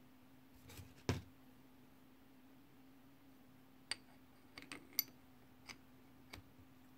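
Flat steel hub wrench handled and fitted over a bicycle hub's threaded axle and locknut: a duller knock about a second in, then a few short, ringing metal clinks and clicks.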